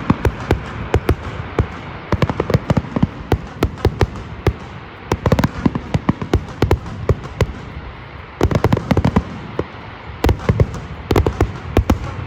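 Fireworks going off: a rapid string of sharp bangs and crackles, with denser, louder volleys about five, eight and a half, and eleven seconds in.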